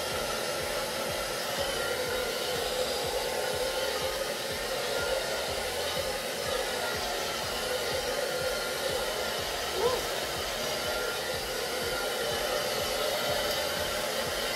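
Hair dryer running steadily, blowing with an even rushing noise.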